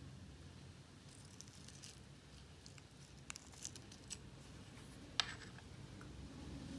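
Faint sticky clicks and crackles of clear slime dotted with tiny beads being stretched and pulled up out of a small jar with a plastic fork, with one sharper click about five seconds in.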